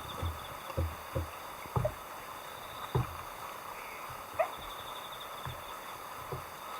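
A series of irregular dull thumps, about a dozen, over a steady high pulsing trill in the background.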